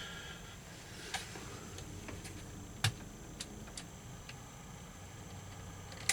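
A few short, light clicks and taps, scattered and irregular, over a faint steady hum.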